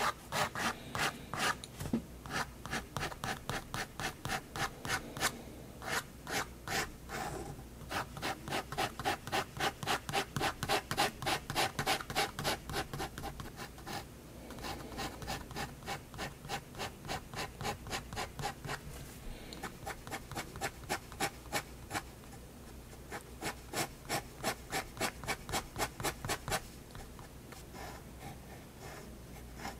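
Staedtler 0.3 mm pigment liner scratching across sketchbook paper in quick back-and-forth hatching strokes, about three a second, in runs broken by short pauses, softer near the end.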